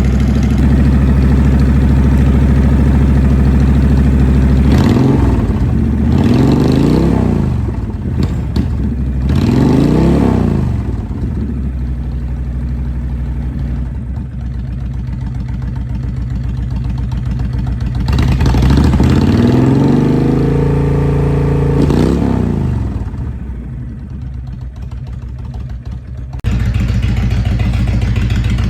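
A 2008 Honda VTX1300C V-twin with a Vance & Hines exhaust idling, blipped up several times with the revs rising and falling back to idle.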